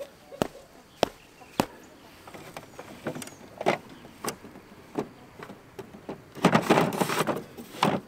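Sharp clicks and knocks from a solar electric-fence charger being fitted onto its ground rod and handled, with about a second of dense rattling and scraping near the end.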